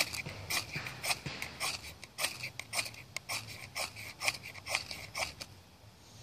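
Ferro rod scraped hard and fast with a knife, about three strikes a second, in a repeated attempt to light wood shavings that have not yet caught. The strikes stop about five and a half seconds in.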